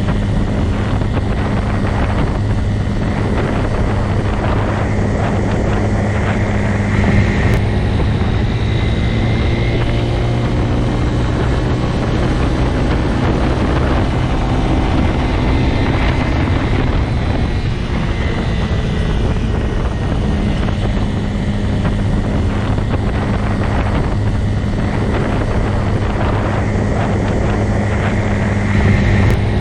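Motorcycle engine running steadily, a continuous low drone with a slight swell in level about seven seconds in and again near the end.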